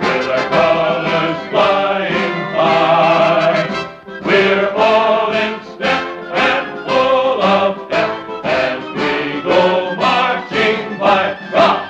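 Orchestral film score with choral singing; from about four seconds in the music takes on a regular, pulsing beat.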